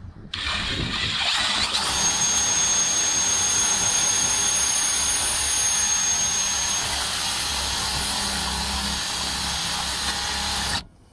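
DeWalt cordless drill boring through a car bonnet's sheet metal with a twist bit, widening a pilot hole: a steady whir of the drill and bit cutting, with a thin high whine over it for a few seconds in the middle. It stops suddenly near the end.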